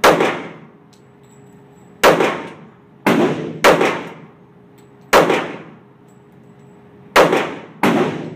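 Kimber pistol fired seven times at an uneven pace, about one shot a second with a quick pair near the middle and another near the end. Each shot rings out with a long echo from the indoor range.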